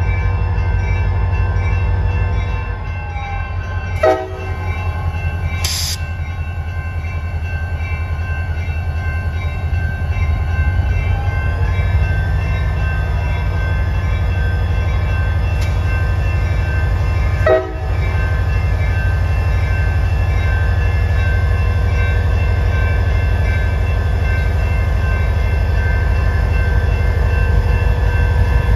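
EMD SD40-2 diesel locomotive rolling past at a crawl, its engine a steady low rumble. Two brief sharp knocks come about 4 and 17 seconds in.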